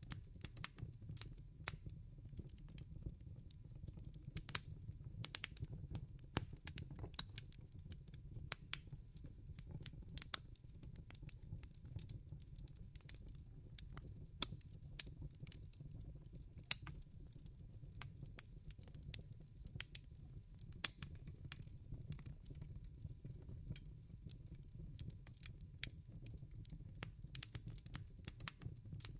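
Wood fire crackling: irregular sharp pops and snaps, several a second, over a low steady rumble of the burning logs.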